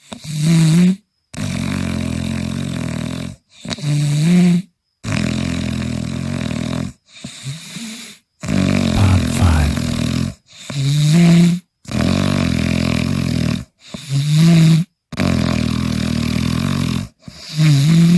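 Snoring in a regular cycle about every three and a half seconds: a short snore of about a second that rises in pitch, then a longer, steady breathy snore of about two seconds. Each sound is cut off by a moment of complete silence.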